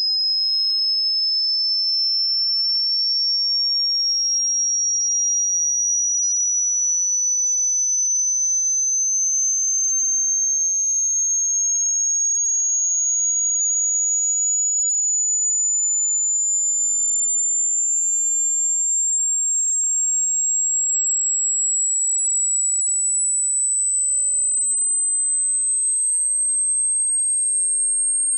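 A single pure, high-pitched electronic tone, steady in loudness, gliding slowly upward in pitch.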